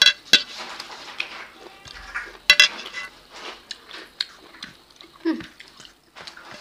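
Eating by hand from plates: fingers mixing and scooping rice and curry, with a few sharp clinks against a stainless-steel plate that ring briefly, the loudest right at the start and about two and a half seconds in.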